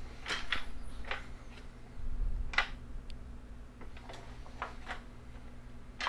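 Scattered light clicks and taps of plastic parts being handled, with a duller knock about two seconds in, over a faint steady low hum.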